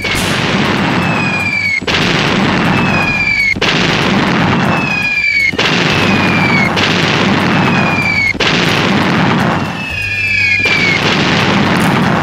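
Incoming shells exploding one after another, about seven in a row. Each blast is a long roar of noise, cut off sharply by the next, and each is led in by a short falling whistle.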